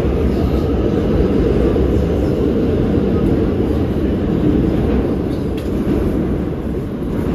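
A New York City subway train running along the track, a loud steady rumble that eases slightly near the end.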